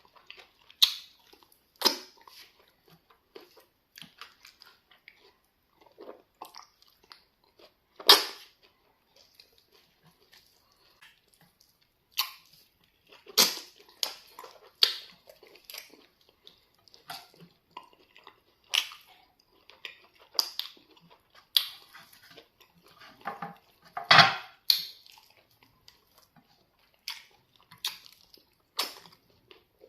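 Close mouth sounds of eating amala (plantain fufu) with slimy okra soup: irregular wet smacking and chewing, with a sharp smack every second or two.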